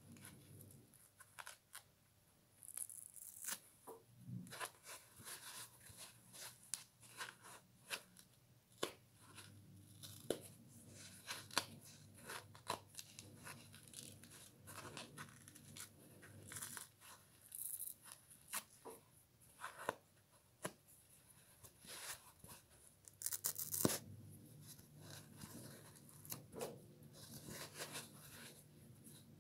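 Foam sponge being plucked and torn by hand off a scouring pad: many short, irregular tearing crackles, with a louder rip a few seconds before the end.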